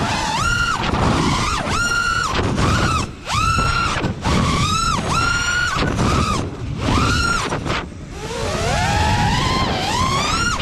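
Brushless motors of a 6S FPV freestyle quad (2306, about 1750 KV, tri-blade props) whining through a quick series of throttle punches: each one a sharp rise to a high held whine, then a chop. Near the end comes a slower, wavering climb. This is full-throttle punching after chopped throttle, which drives the quad back through its own prop wash. It is heard from the onboard camera with wind rush underneath.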